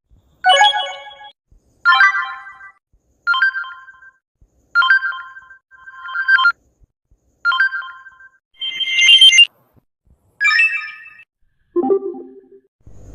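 Samsung phone notification tones played one after another: about nine short, separate chimes with brief silences between them. Most are bright and high; the last one is lower.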